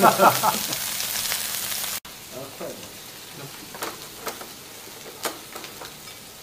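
Raw meat sizzling on a hot barbecue grill plate. The hiss is louder for the first two seconds, then drops abruptly. After the drop it goes on more quietly, with scattered pops and crackles.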